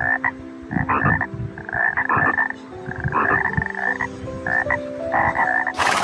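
Frog croaking: short rasping pulsed calls repeated about once a second. A brief burst of noise cuts in near the end.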